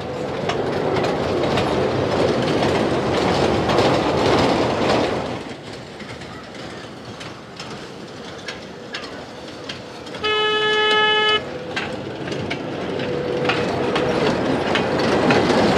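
A park's children's toy train running on its track, wheels clicking, loud for the first five seconds, then fading and building again near the end. About ten seconds in it sounds one horn toot, lasting about a second.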